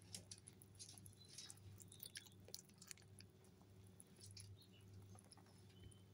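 Mini Lop rabbits chewing banana from the hand: faint, irregular little clicks of nibbling and chewing.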